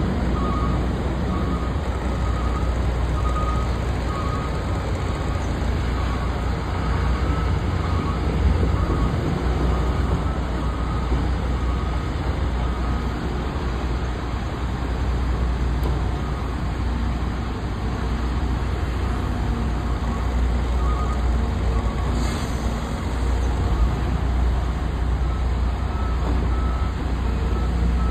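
Caterpillar high-reach demolition excavator's diesel engine running steadily under load as the arm works, a constant low rumble. Faint intermittent high beeping comes and goes near the start and again later on.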